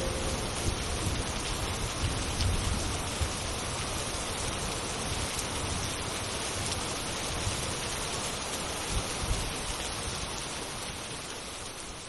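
Steady rain ambience with a low rumble and scattered drops. It fades out gradually near the end. A synthesized train horn chord cuts off right at the start.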